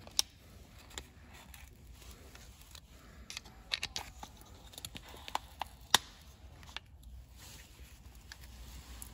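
Scattered light metallic clicks and taps from handling a band-type piston ring compressor and fitting it around a piston. The sharpest clicks come near the start and about six seconds in.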